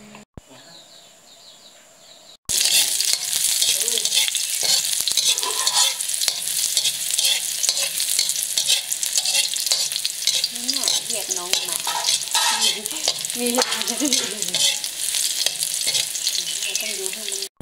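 Chopped garlic sizzling loudly in hot oil in a steel wok, stirred with a metal spatula. The sizzle starts suddenly about two and a half seconds in, after a quieter start.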